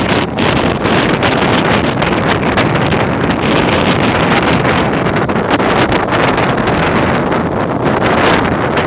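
Ocean surf: a loud, steady wash of wave noise with no distinct breaks.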